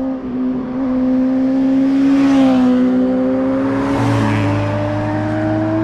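Motorcycle passing close at speed, its engine note climbing as it accelerates, with a brief drop in pitch as it goes by about two and a half seconds in.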